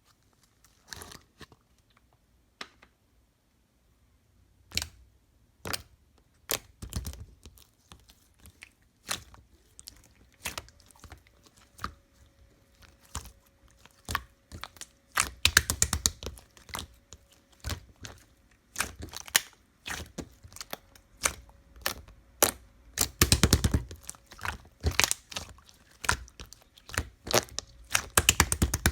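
Slime being squished and pressed by hand, giving irregular sharp pops and crackles, with denser runs of rapid popping about halfway through and again near the end.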